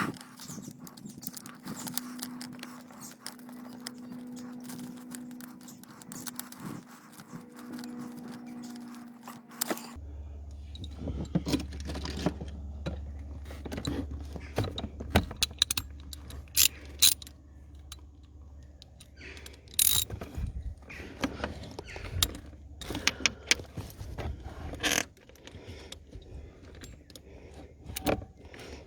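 Metal clinks, light knocks and scraping of hand tools and bolts as the thermostat housing bolts are fitted and done up on a Ford Mondeo 1.8 TDCi engine. A steady hum runs underneath and drops lower about ten seconds in.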